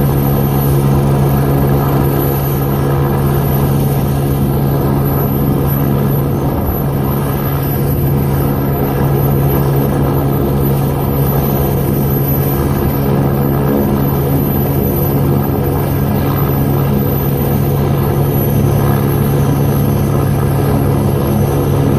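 AgustaWestland AW109 twin-turbine helicopter running on the ground with its rotor turning: a steady drone with a strong low hum that holds at one pitch and level.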